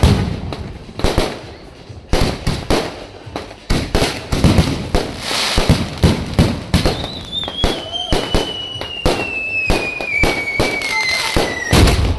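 Fireworks going off in quick succession: a dense run of bangs and crackling bursts. From about seven seconds in, a long whistle falls steadily in pitch until near the end.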